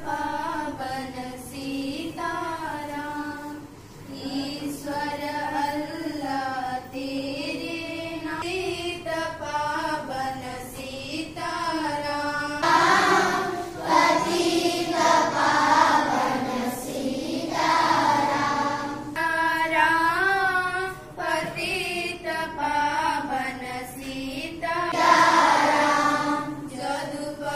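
A small group of schoolgirls singing a song together, unaccompanied, reading the words from a sheet.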